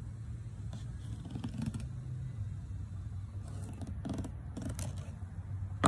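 Fillet knife slicing through the scaled skin of a flounder in several short cutting strokes, scoring it in a crosshatch, over a steady low hum.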